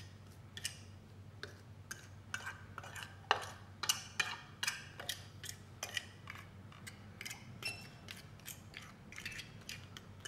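Metal fork stirring dry flour and cornstarch on a ceramic plate: quick, irregular clicks and scrapes of the tines against the plate, several a second.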